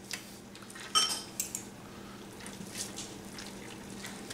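Two metal forks clinking and scraping against a stainless steel pan while shredding pressure-cooked chuck roast, with the loudest ringing clink about a second in and a few lighter ticks after. A faint steady low hum sits underneath.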